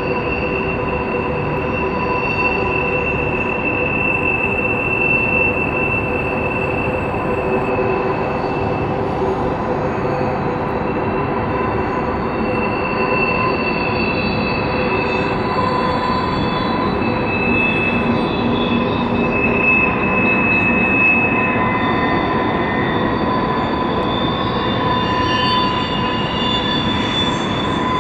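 Freight cars of a mixed manifest train rolling by on curved track. The wheels squeal steadily in several high tones that shift and overlap over the rumble of the passing cars.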